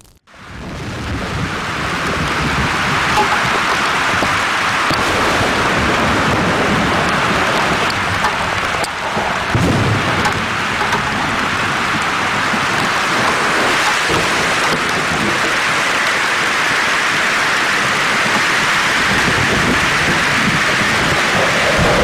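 Hailstorm: rain and hail pelting the forest floor in a steady, dense hiss that starts suddenly and swells over the first couple of seconds, with low rumbles of thunder near the middle.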